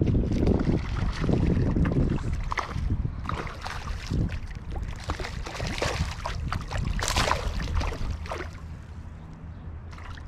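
Wind gusting on the microphone beside a river, with irregular splashes and water sounds, most of them in the middle seconds.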